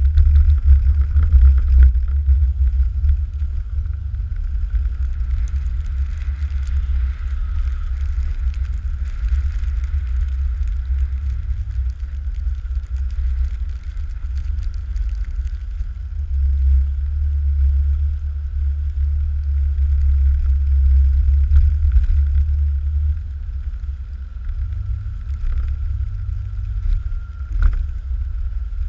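Plow truck driving slowly as it pulls a 16-foot Ebling back blade through snow: a steady low rumble that swells now and then, with a faint steady high whine over it. A single knock near the end.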